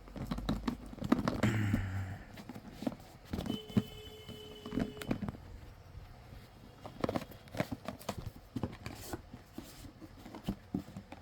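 Hands handling a smartphone's retail box and packaging during unboxing: irregular taps, knocks and rustling.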